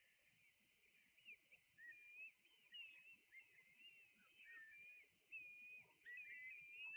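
Faint, repeated short whistled calls and chirps from a flock of waders, some rising and falling in pitch, with a soft low rumble of wind or surf underneath.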